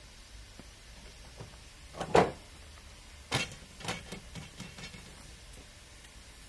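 Railway points lever thrown by hand: one loud metallic clunk about two seconds in, followed by a run of lighter clanks and knocks over the next couple of seconds.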